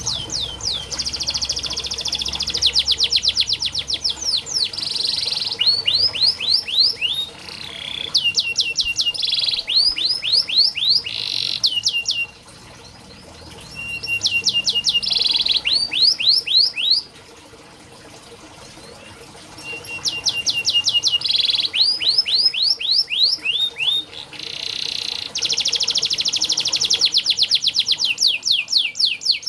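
Domestic canary singing: fast rolling trills of rapid, repeated down-sweeping whistled notes, in phrases broken twice by pauses of a couple of seconds.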